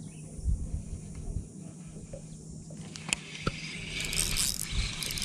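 Spinning reel being cranked to retrieve the lure: a fluttering whir of the rotor and handle starting about four seconds in. Before it come a couple of sharp clicks and some low handling thumps.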